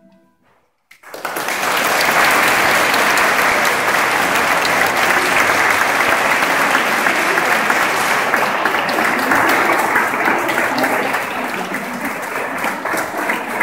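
An audience breaks into applause about a second in, steady and dense, easing slightly near the end.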